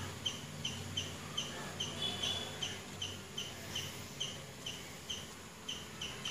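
Faint, evenly repeated high-pitched chirps, about two to three a second, from an unseen chirping creature, over a low background hum.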